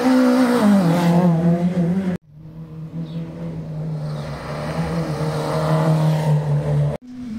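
Rally car engines at speed: one rises in pitch and then falls off as the driver lifts or changes gear. The sound cuts out abruptly about two seconds in and comes back as a steadier engine note growing louder, then breaks off again near the end before another engine note starts.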